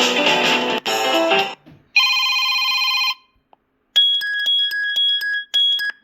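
Preloaded phone ringtones on a Kyocera DuraForce Pro, played back one after another: the tail of a strummed guitar tune, a short pause, about a second of a steady electronic ring chord, then a second pause and a repeating pattern of short electronic beeps.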